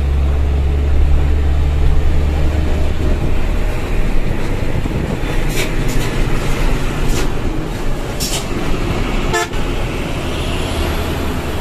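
Mitsubishi Fuso Fighter dump truck's diesel engine running, heard from the cab with a low hum, giving way after about three seconds to open-window wind and road noise from a truck close alongside. A few short horn toots come in the second half.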